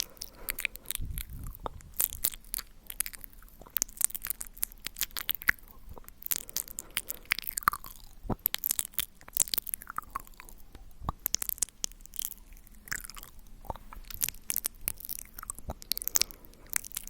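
Close-miked mouth sounds: wet lip and tongue clicks and pops, in a rapid irregular run with short squelchy smacks.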